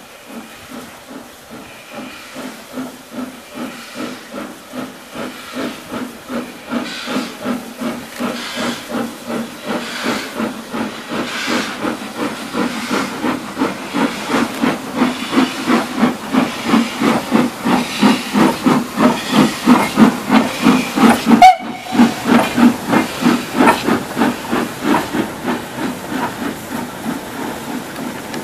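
LMS Fowler Class 7F 2-8-0 steam locomotive pulling away with a goods train: a rhythmic chuffing exhaust that quickens and grows louder as it comes past, loudest about 21 seconds in, over hissing steam from its open cylinder drain cocks.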